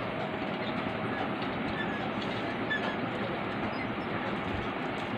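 AC/DC solar ceiling fan running at speed: a steady rushing of air from the spinning blades, with motor noise.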